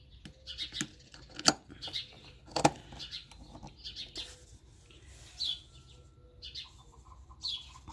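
Small birds chirping on and off in short high calls, one sweeping downward. Two sharp clicks, about a second and a half and two and a half seconds in, are the loudest sounds.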